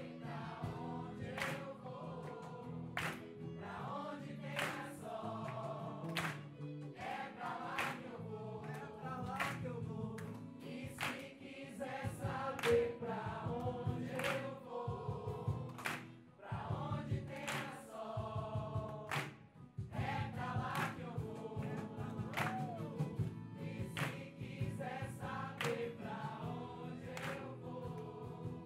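Background music: a choir singing over a steady beat.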